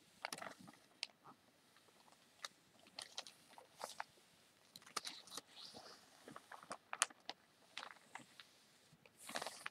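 Newspaper being handled and folded by hand: soft, irregular crinkles and crackles of the paper, with a longer rustle near the end.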